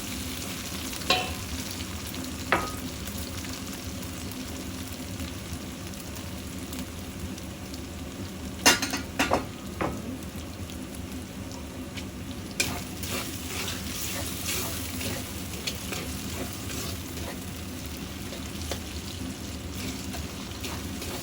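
Eggplant frying in oil in a pan with a steady sizzle while it is stirred. Metal clinks of the utensil against the pan come about a second in, again a second and a half later, and as a quick cluster of knocks about nine seconds in.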